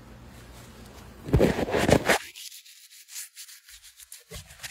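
A phone's camera lens being rubbed clean of fog and oil, close on its microphone. Heavy rubbing strokes come about a second in, then lighter ones follow, over a low hum that cuts out about two seconds in.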